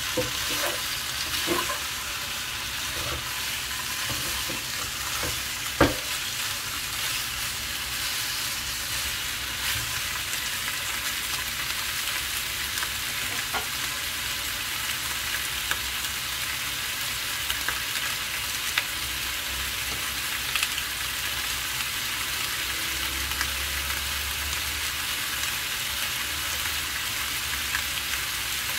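Chicken pieces sizzling steadily in a frying pan, with a cooking utensil now and then clicking against the pan and one sharp knock about six seconds in.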